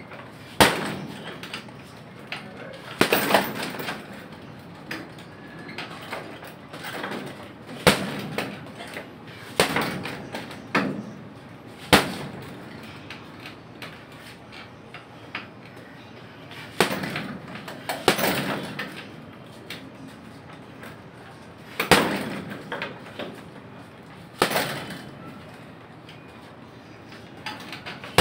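Heavy punching bag being struck, each hit a sharp smack. The hits come singly or in quick flurries of two to four, a second to several seconds apart.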